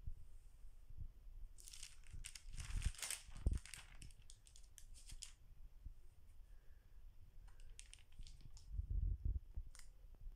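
Pages of a stamp stockbook being turned by hand, the paper pages and their clear stamp strips crinkling and rustling in two bouts: a longer one from about a second and a half in, and a shorter one later, with a few low knocks near the end.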